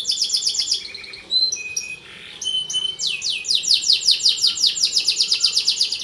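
Canary singing: a fast trill of repeated notes, a few short whistled notes, then from about three seconds in a long, rapid rolling trill of evenly repeated notes.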